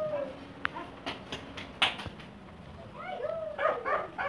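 A dog yipping and barking in short arched cries, trailing off at the start and coming again as a quick run of yips about three seconds in. Between them come a few sharp plastic clicks and taps as the fibre headlight mask is handled.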